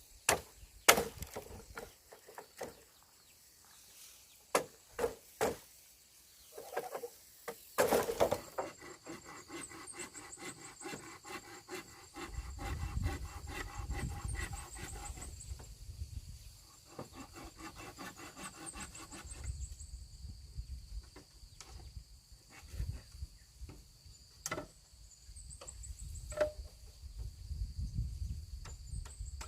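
Scattered knocks of wood being handled, then several seconds of rhythmic scraping strokes on wood, with insects chirping in short trills.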